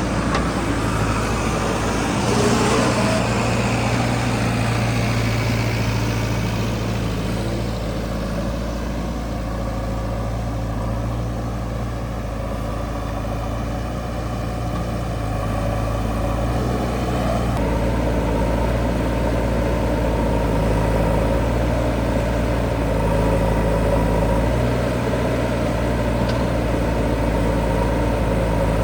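Heavy diesel engine of earth-moving machinery, a backhoe loader or the tractor beside it, running steadily with a shift in its note about two-thirds of the way through.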